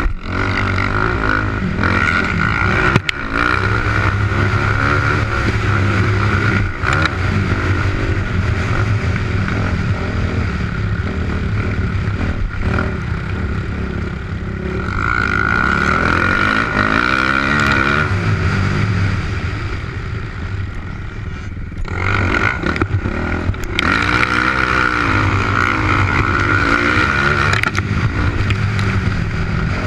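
2008 Yamaha YZ450F's single-cylinder four-stroke engine revving up and down as it is ridden around a motocross track, heard from a helmet camera. The throttle eases off twice, around the middle and about two-thirds through, and there is a sharp knock about three seconds in.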